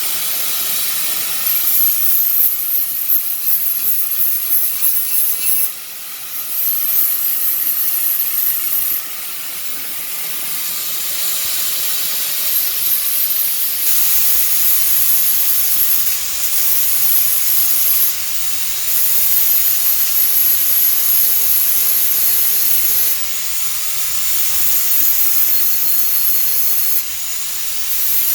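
An angle grinder with a flap disc grinding the edge of a dull, nicked steel mower blade to sharpen it: a steady high whine over a hiss. The grinding comes in passes, with short dips in level every few seconds.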